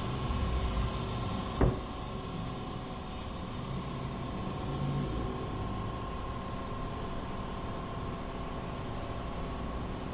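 Steady background hum of the workshop, with a single sharp knock about one and a half seconds in.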